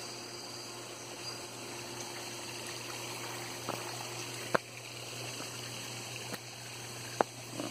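Steady sound of running water, with a low hum underneath. Two sharp clicks stand out, about four and a half and seven seconds in.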